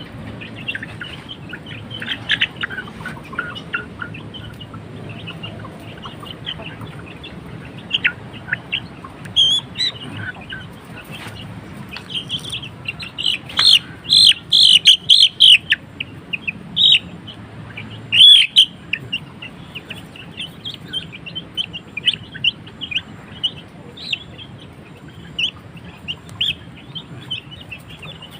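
Bangkok game-chicken chicks peeping in short, high chirps, with a run of louder, rapid peeps about halfway through and one more loud peep shortly after.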